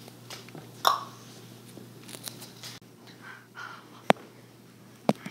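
Quiet room tone with a steady low hum and a few sharp clicks or knocks, the loudest about a second in and about four seconds in.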